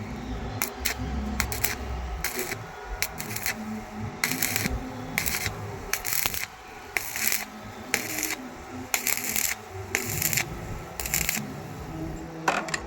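Short, harsh rasping strokes, roughly one a second and a little irregular, over a steady low hum: metalwork at a welding job.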